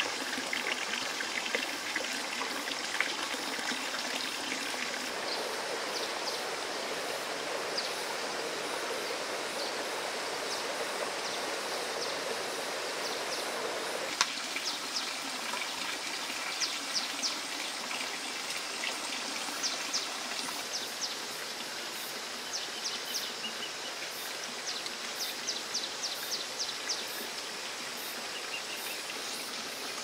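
Steady rush of flowing stream water, which thins a little about halfway, with runs of short high chirps over it from then on.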